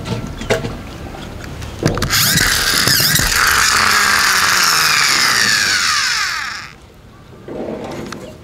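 Plastic toy monster truck's gears and wheels whirring loudly as the wheels spin freely in the air, the pitch falling as they slow, then stopping abruptly near the end. A few plastic clicks from the toy being handled come before it.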